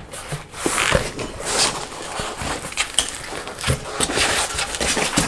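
Foam packing rustling and scraping as an aluminium engraver rail is worked loose and lifted out of a cardboard box, with a few knocks of the rail against the box.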